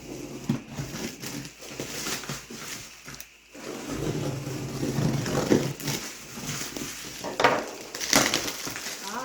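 Cardboard package being handled and opened: irregular rustling, scraping and crackling, with scattered small knocks.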